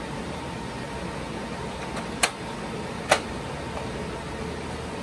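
Two sharp plastic clicks about a second apart as the clear plastic air baffle of an HP rack server is pressed into place, over a steady whir of fan and air noise.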